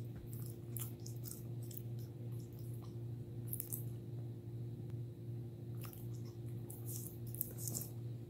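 A puppy gnawing on a hard bully stick: spurts of crisp clicks and crunches of teeth on the chew, with pauses between, over a steady low hum.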